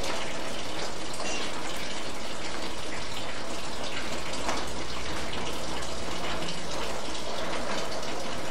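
Steady rain falling: an even hiss of water with no break.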